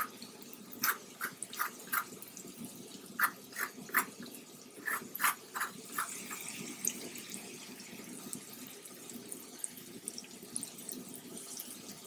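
Garlic butter sizzling in a skillet under trout fillets: a steady low simmer with a fine hiss, and a run of short sharp clicks over the first half.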